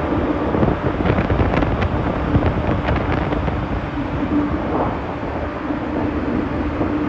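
Ferry under way: a steady rumble with wind buffeting the microphone, a steady low hum, and a few light knocks in the first half.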